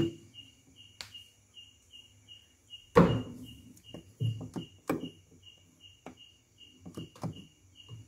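Knocks and clicks from a hand working the temperature dial inside a Samsung two-door fridge, the loudest knock about three seconds in. Under them are a low steady hum from the freshly started compressor and a steady high chirping about three times a second.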